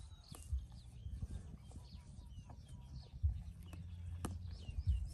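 A white zebu cow grazing dry stubble, its mouth tearing and chewing the grass in irregular crunches and clicks, with low thumps, a louder one a little past three seconds. Small birds chirp briefly now and then.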